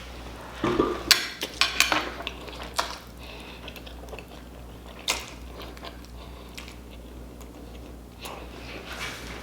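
Close-miked mouth sounds of eating noodles with no hands: wet chewing and smacking clicks, busiest in the first few seconds, with one sharp click about five seconds in and softer chewing after.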